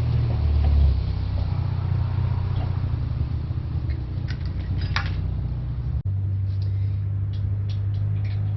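A steady, loud low mechanical hum, with scattered light clicks over it.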